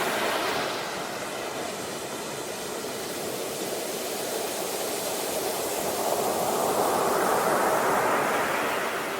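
Sea surf: a steady rush of waves washing on a shore, swelling to a louder wash about seven seconds in and then easing off.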